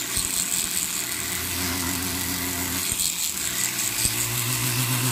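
Flex shaft rotary tool spinning a small polishing wheel against the edge of a gold ring, buffing off leftover super glue around a lapis inlay. A steady whir with a low motor hum that changes pitch a few times.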